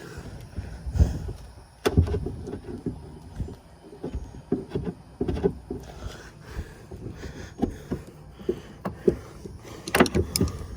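Irregular knocks, bumps and rubbing as hands work a fuel hose onto a boat's fuel tank inside the hull, with a sharp knock about two seconds in and a quick cluster of clicks near the end.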